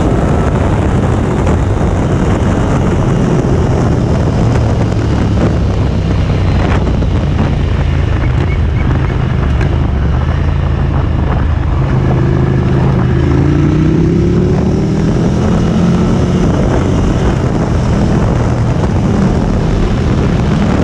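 Motorcycle engine running under way with wind rushing over the microphone; about thirteen seconds in the engine note climbs as the bike speeds up.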